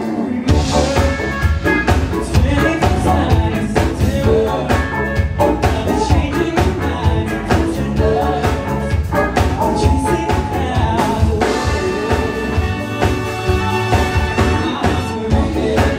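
Live band playing a song, with a singing voice over drums and bass.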